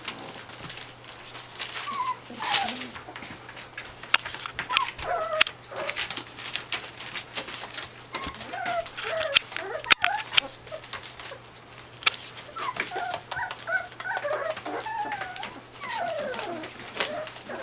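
A litter of young puppies whimpering and squeaking: many short, high squeals that slide up and down in pitch, scattered throughout. Mixed in are light clicks and rustles of small paws scrambling over newspaper.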